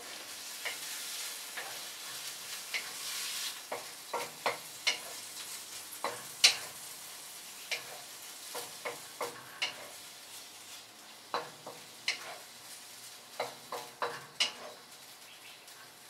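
Chicken pieces sizzling in a hot wok while being stirred and tossed, with irregular sharp clicks and taps of the utensil against the pan. The sizzle is strongest in the first few seconds and then dies down.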